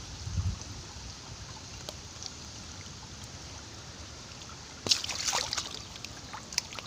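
Shallow stream water trickling and lapping around a wader's legs and hands, with a sudden splash about five seconds in as a hand is disturbed in the water.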